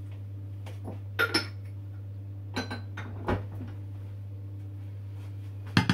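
A handful of short clinks and knocks of a metal spoon and kitchenware: a close pair about a second in, a couple more in the middle, and the loudest near the end. A steady low hum runs underneath.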